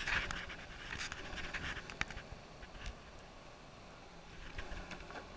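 Longboard wheels rolling on an asphalt path, with irregular clicks in the first two seconds and a foot pushing off against the road near the end.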